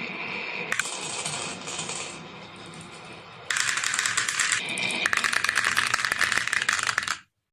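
Marbles rolling and clattering down a marble run track, a dense rattle of rapid clicks that grows louder about three and a half seconds in and cuts off suddenly near the end.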